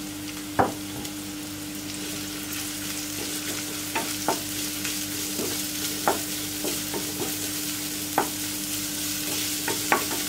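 Chopped onion and garlic sizzling in hot oil in a non-stick pan while being sautéed, stirred with a wooden spatula that knocks against the pan about six times, the loudest knock about half a second in.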